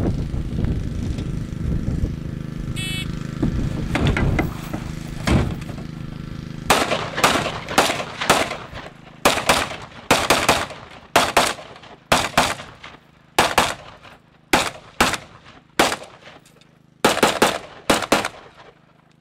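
Custom AR-15 rifle in .223 firing a long string of shots, many in quick pairs with short pauses between, starting about four seconds in and ending shortly before the end.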